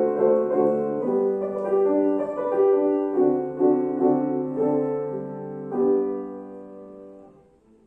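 Piano playing the closing bars of a song accompaniment, without voice. It ends on a final chord struck about six seconds in that rings and dies away.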